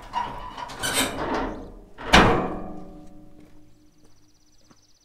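A heavy, rusty frame of square steel tubing scraped along and then dropped onto stacked steel ramps: a loud metallic clang about two seconds in that rings on for a second or two before dying away.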